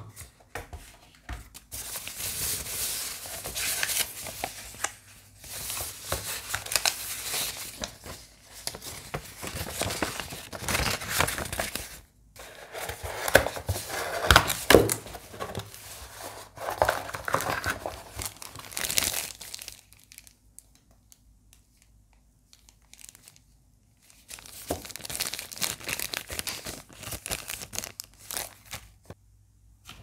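Packing paper and wrapping sheets rustling and crinkling as hands unfold them in a box, in irregular handling bursts with a quiet gap of a few seconds before a last stretch of rustling.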